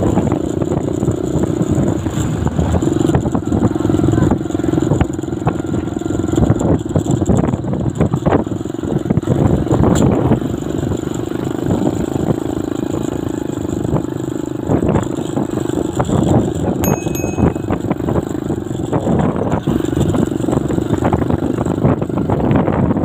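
Motorcycle running steadily along a road, its engine hum mixed with road noise and wind rumbling on the microphone.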